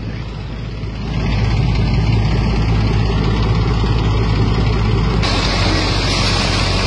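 Combine harvester running steadily in wheat, a heavy engine drone that grows louder about a second in. About five seconds in it changes abruptly to a brighter, hissier sound as the grain unloading auger pours grain.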